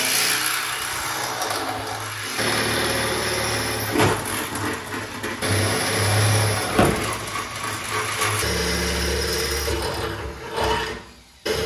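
Corded electric drill with a 3/8-inch bit boring holes through the Jeep YJ's steel body. The motor's pitch changes several times as the bit bites and cuts, and it stops briefly near the end before starting again.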